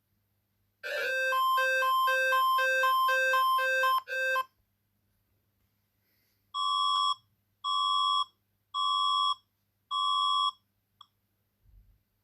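Emergency broadcast alert tones. First comes a quick two-pitch warble that alternates low and high for about three and a half seconds. After a pause come four long electronic beeps on one pitch, about a second apart.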